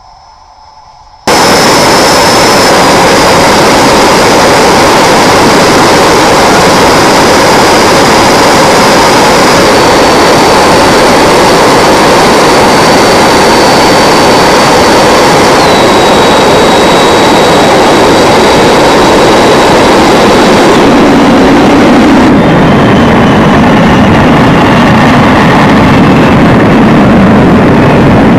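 Freewing T-33 RC jet in flight: a loud, steady jet roar with a thin high whine that cuts in suddenly about a second in. The whine steps down in pitch several times as the throttle comes back.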